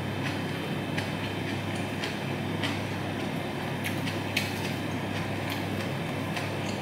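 Eating sounds of a person eating rice and greens by hand: small irregular clicks and smacks of chewing and fingers on the plate, over a steady low hum.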